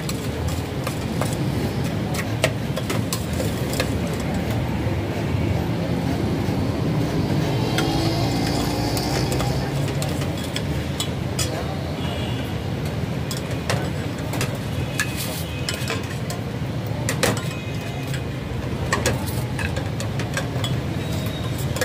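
A metal spoon clinks and scrapes irregularly against a stainless-steel bowl as bhelpuri is tossed and served. Underneath runs a steady low hum of street traffic with background voices.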